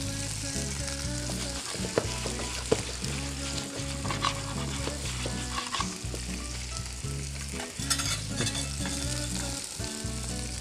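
Food sizzling in hot frying pans while diced carrot, potato and spinach are stirred with a metal spoon, with a couple of sharp taps of the spoon on the pan about two seconds in.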